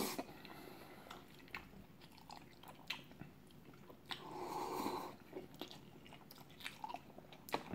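A person eating chewy jjolmyeon noodles: short wet chewing clicks throughout, and one slurp of a noodle strand lasting about a second, about four seconds in.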